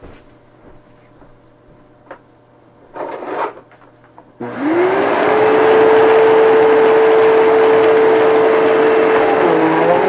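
Hoover Elite Rewind upright vacuum switched on about four seconds in: its motor spins up quickly to a loud, steady whine with a rush of air. Its pitch dips slightly near the end.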